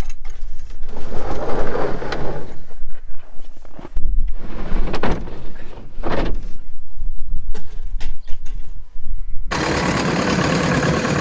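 Loud, irregular low rumbling with scattered knocks, then, after a sudden change about nine and a half seconds in, a Versatile 150 tractor's engine running steadily just after starting.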